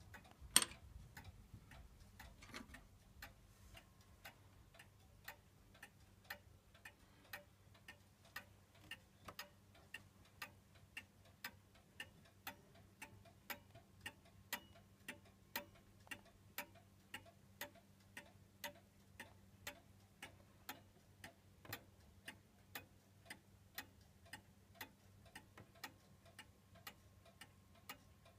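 The 8-day movement of an FMS Mauthe pendulum regulator wall clock, ticking faintly and steadily at about two ticks a second. There is one louder knock about half a second in.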